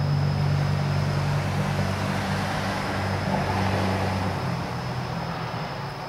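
Low engine rumble of a passing motor vehicle in urban ambience, fading out about four and a half seconds in, with a thin steady high whine behind it.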